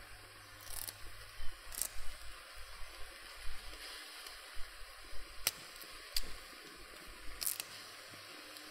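Curry leaves and torn pandan leaf pieces dropped onto raw crab pieces in a clay pot: faint, scattered soft rustles and light clicks, about half a dozen.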